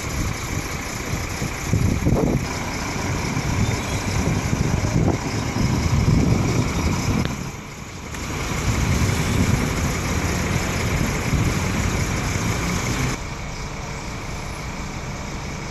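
A motor vehicle engine running steadily amid street traffic noise. The level dips briefly about halfway through and drops a little near the end.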